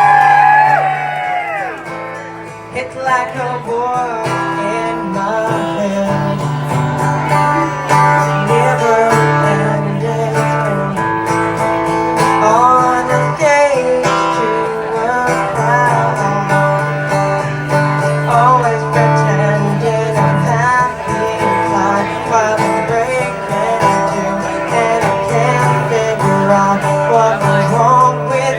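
Live acoustic guitar music, plucked and strummed over a steady low note pattern, with a voice singing a wavering melody. Whoops from the audience fade out in the first second.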